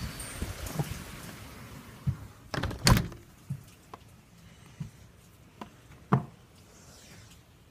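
Heavy rain hissing, dying away as a door is handled and shut with a loud thunk about three seconds in; a few lighter knocks follow.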